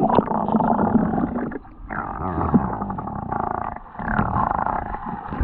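Muffled rushing and rumbling of seawater heard with the microphone submerged, with two brief drops in level along the way.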